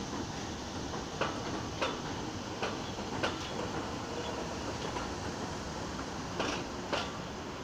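New York City subway train rolling past on an elevated track: a steady rumble with sharp clacks of its wheels over rail joints, coming in three pairs.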